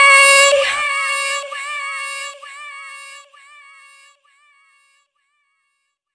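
Music at the end of an electronic song: a high female voice holds a long note with small pitch wobbles and fades out, ending in silence about four seconds in.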